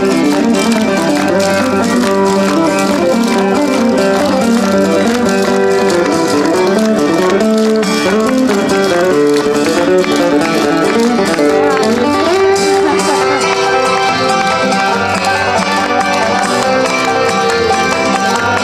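Bluegrass-style string-band music with plucked banjo and guitar, played at a steady dance pace, with many sharp taps of clogging shoes on pavement over it.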